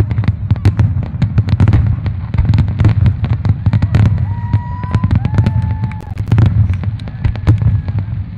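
Fireworks display: a rapid, continuous barrage of aerial shells bursting with sharp bangs and crackles over a deep rumble. A few short high whistles sound around the middle.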